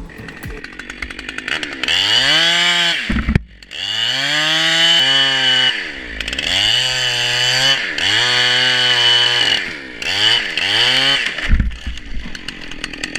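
Chainsaw revving up to full speed and dropping back several times, each rev held for a second or two, with two short blips near the end.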